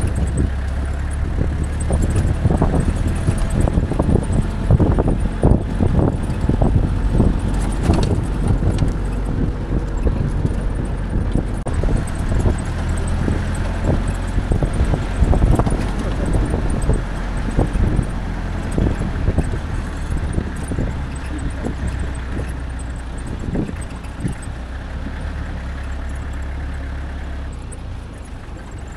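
An off-road 4x4's engine runs steadily while the vehicle drives over rough, rocky ground, with frequent knocks and rattles as it jolts. The ride grows smoother and quieter near the end.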